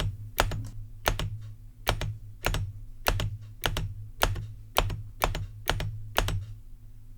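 Heavy metal spacebar keycap (nearly 30 g, suspected zamak) on a mechanical keyboard, pressed repeatedly: about twenty sharp clacks, some in quick pairs, spread unevenly over several seconds. A faint low hum runs underneath.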